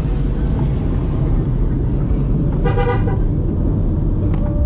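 Steady rumble of a car driving at low speed, with one short vehicle-horn toot about two and a half seconds in.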